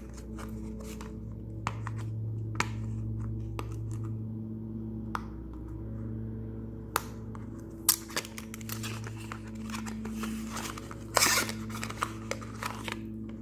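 Soft background music with long sustained tones, over scattered clicks and light rustling of packaging being handled, with a short, louder rustle near the end.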